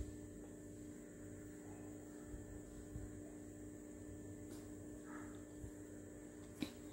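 Faint steady electrical mains hum, with a faint tick near the end.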